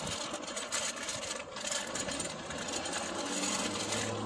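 Child's bike wheels rolling and rattling over a concrete sidewalk as it is pushed along, a steady, busy clatter. A low steady hum comes in near the end.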